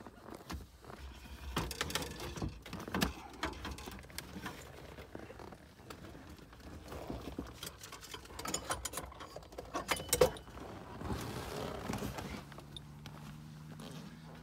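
Handling noise in a car's footwell: scattered clicks, taps and rustling, with one sharp click about ten seconds in. A low steady hum starts near the end.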